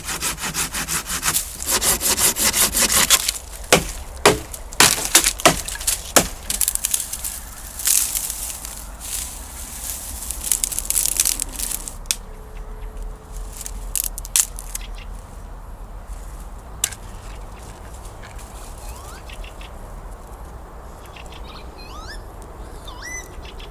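Small campfire of dry grass and thin twigs crackling as it catches: a dense run of sharp pops and cracks for about the first twelve seconds, then thinning to scattered pops. A bird chirps a few times near the end.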